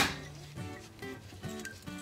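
Background music, with a metallic clatter dying away at the very start and a couple of faint clinks as steel brake parts are handled.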